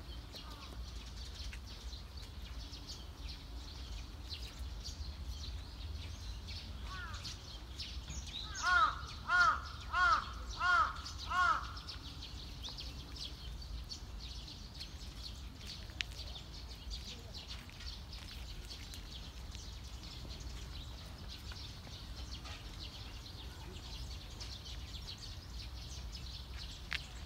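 A crow cawing five times in quick succession, about nine seconds in, over faint steady background noise.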